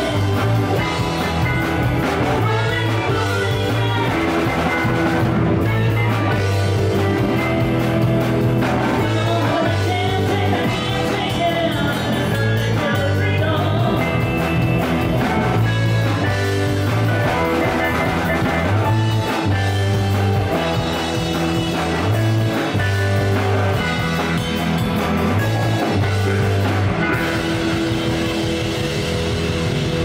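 Live funk jam band playing: electric guitars, bass, drum kit and electric keyboard over a pulsing bass line, with a woman singing.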